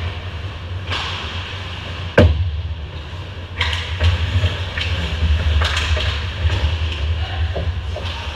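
Ice hockey play close to the goal: skate blades scraping and hissing on the ice several times. About two seconds in comes a single sharp knock, the loudest sound, with a steady low rumble underneath throughout.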